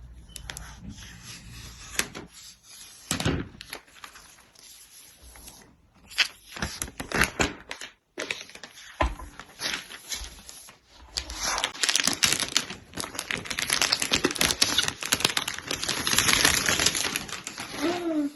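Crinkling and crackling of a new MacBook Air's protective wrapping being pulled and peeled off: a string of small irregular snaps and rustles that grows denser and louder in the last third, with a brief silent break about eight seconds in.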